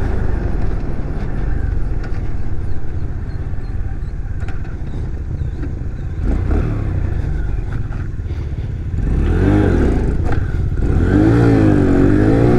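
X-Pro Vader 125cc single-cylinder motorcycle engine running under way, with wind and road noise over the microphone. About nine seconds in, the engine is opened up and its pitch rises, then wavers up and down as the throttle is worked.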